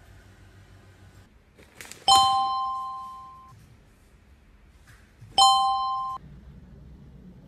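Two bright electronic chimes, each a ding of two notes sounding together with a shimmer of higher overtones. The first comes about two seconds in and rings out over a second and a half. The second comes about five seconds in and is cut off short.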